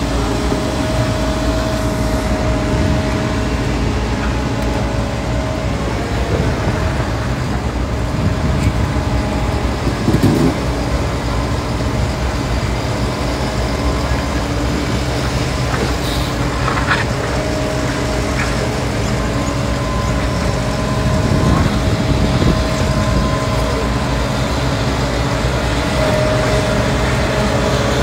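Menzi Muck M545x walking excavator running, its diesel engine and hydraulics working steadily as the boom and loaded bucket move, with a higher steady tone that drops out and returns a few times.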